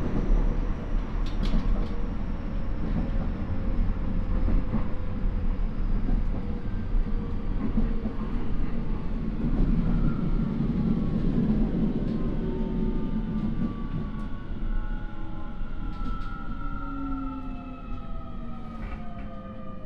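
Keio 9000 series electric train with a Hitachi IGBT inverter slowing down: the inverter whine slides steadily down in pitch over the rumble of wheels on rail, typical of regenerative braking on the approach to a station. Heard from inside the passenger car.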